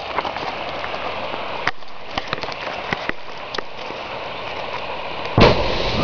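A steady background rush, then about five and a half seconds in the sudden loud blast of a plastic-explosive charge going off underwater in the river. It is followed by the rush of a tall column of water thrown into the air.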